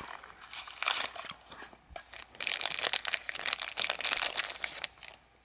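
Plastic packaging crinkling and crackling in irregular bursts as it is handled, loudest in the second half.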